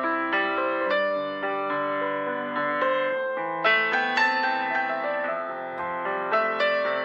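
Background music: a gentle piano piece playing steadily.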